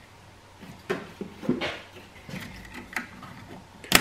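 Hollow plastic knocks and clunks as the washer fluid jug and reservoir cap are handled, ending in one sharp click near the end as the washer fluid reservoir cap is pressed shut.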